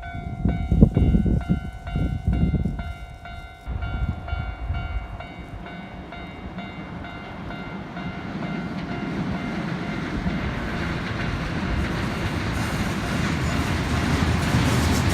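Japanese level-crossing alarm ringing its repeated kan-kan bell, which fades under the running noise of an approaching train that grows steadily louder toward the end.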